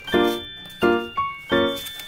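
Background music: a bright tune of evenly spaced notes, about one every 0.7 seconds, each fading before the next.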